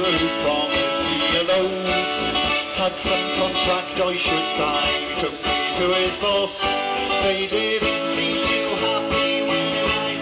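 A band playing an instrumental passage of an upbeat, country-style song, with strummed guitar to the fore.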